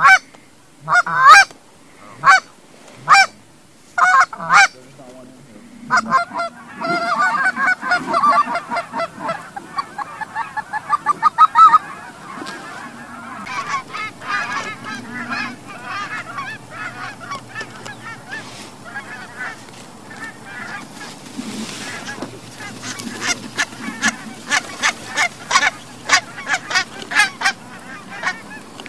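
Goose honks and clucks: a few loud single honks, then a fast, dense run of clucking calls, then many short honks in quick succession near the end.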